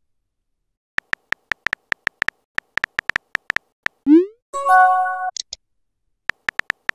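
Keyboard tap sound effects from a texting-story app: a fast run of key clicks for about three seconds, then a rising whoosh as the message sends, followed by a short chiming message tone. A few more key clicks come near the end.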